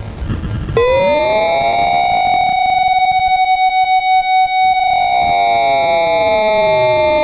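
Whelen WPS 2740 siren tone, electronically altered. After a short burst of rough noise, two copies of the tone glide toward each other, one falling and one rising. They merge into a single tone that pulses as the two beat against each other, and near the five-second mark they slide apart again.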